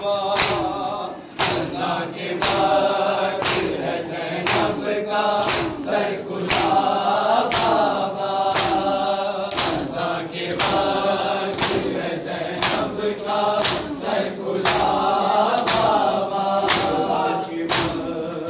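Group of men chanting an Urdu noha (Shia mourning elegy) together, with a steady beat of matam: palms striking chests about once a second.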